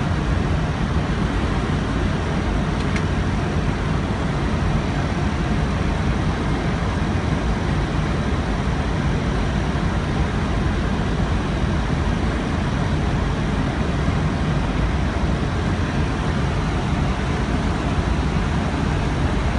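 Steady cockpit noise of an Airbus A320 on final approach: an even rush of airflow and engine noise, strongest in the low range, with no change in level.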